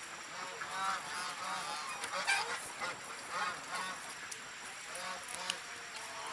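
Geese honking: many short, repeated calls overlapping one another throughout.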